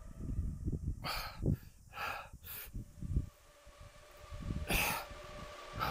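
A person breathing hard through a workout set: four short, forceful exhalations over about a second and a half, starting about a second in, then a longer breath out near the end.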